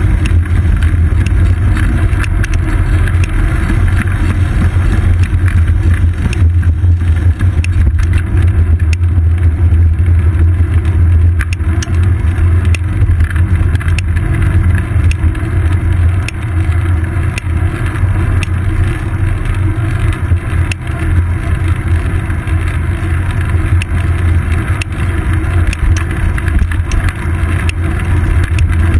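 Wind and road vibration on a GoPro Hero 2 clamped to the seat post of a moving bicycle: a loud, steady low rumble, with scattered clicks and rattles from the bike.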